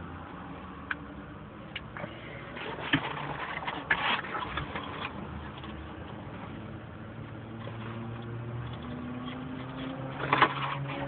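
An empty cardboard pizza box being handled and moved: clusters of crackling clicks about three to five seconds in and again near the end, over a low steady hum.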